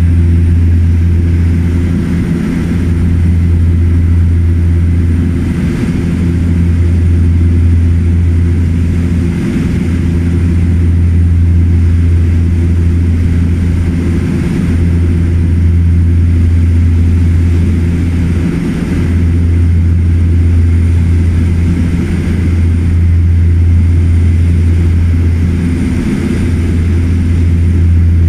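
Cabin noise of a de Havilland Canada DHC-6 Twin Otter in level flight: its twin Pratt & Whitney PT6A turboprop engines and propellers make a loud, steady low drone with a hum on top. The drone swells and fades slowly every few seconds.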